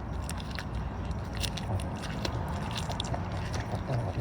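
A large carnivore chewing and biting into its food, with irregular sharp crunching clicks.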